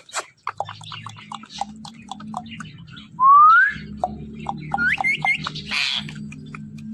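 Indian ringneck parrot whistling and clicking: a run of short clicks, then one loud rising whistle about three seconds in, followed by three quick rising chirps and a short harsh squawk.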